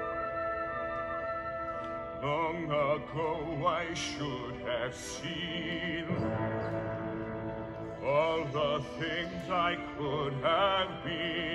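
Trumpet solo played with a wide vibrato in two phrases over an orchestral backing track. The backing chords carry on alone in the short rest between the phrases.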